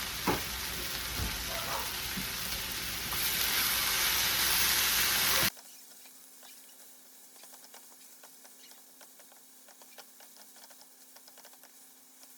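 Food sizzling in a frying pan on the stove, with a few light knocks. The sizzle grows louder about three seconds in, then cuts off abruptly midway, leaving a quiet room with a faint low hum and light ticking.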